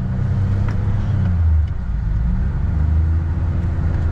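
A vehicle engine running under load as it tries to back out through deep snow: a steady low hum that dips briefly a little over one and a half seconds in, with a higher steady tone joining near the end.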